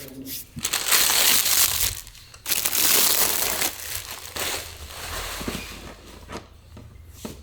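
Packaging wrap being crumpled and pulled off during an unboxing. There are two loud crinkling spells, about a second in and again about two and a half seconds in, each lasting over a second, followed by quieter rustling and a few knocks.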